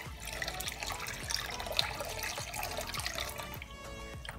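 Cornstarch batter poured into bubbling sugar syrup in a kadhai while a wooden spoon stirs: a liquid pouring and bubbling sound that fades about three and a half seconds in, leaving background music.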